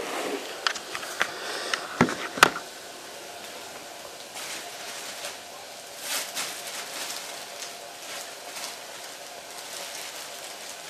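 Several sharp knocks as objects are set down on a hard surface, the loudest about two and a half seconds in, then soft rustling and handling noises.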